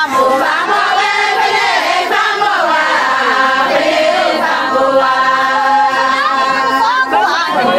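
A group of voices singing together in a chant, several voices overlapping without a break.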